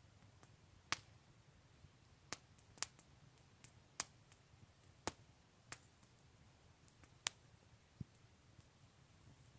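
Small wood campfire crackling, with sharp pops at irregular intervals, several seconds apart or less. There is one duller knock about eight seconds in.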